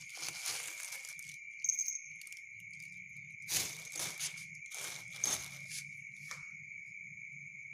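Thin plastic bag crinkling in several short rustles as a calico kitten paws at it, over a steady high-pitched cricket trill.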